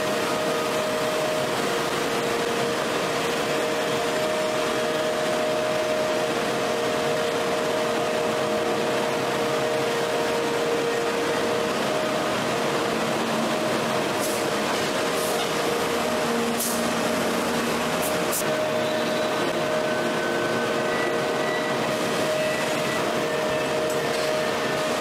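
Large hydraulic forging press running as its die squeezes a red-hot steel ring: a steady industrial hum and rush with two held tones, and no hammer blows. A few faint ticks come about halfway through.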